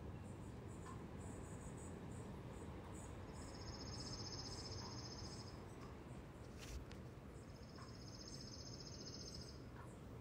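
Faint outdoor ambience with a low steady rumble and two high, rapidly pulsed trills of about two seconds each, one near the middle and one near the end, with scattered faint high chirps. One short click comes about two-thirds of the way through.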